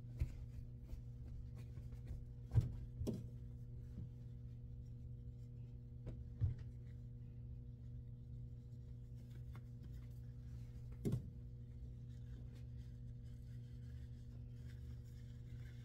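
Steady low electrical hum of laundromat machinery, with a few short knocks and clicks from laundry being handled, the loudest about two and a half seconds in and another near eleven seconds.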